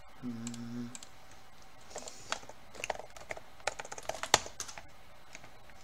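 Computer keyboard typing: a quick run of key clicks starting about two seconds in, with one much louder click partway through.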